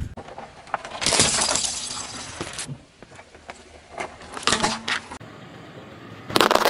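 A car tyre rolling over and crushing small hard candies and a plastic candy toy. A loud crunching and crackling lasts about a second and a half, starting a second in. Shorter cracks and crunches follow around four seconds, and another loud crunch comes near the end.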